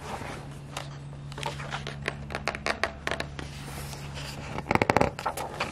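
Pages of a picture book being turned and handled, paper rustling and scraping in short bursts. A louder, quick flurry of rustling comes about five seconds in.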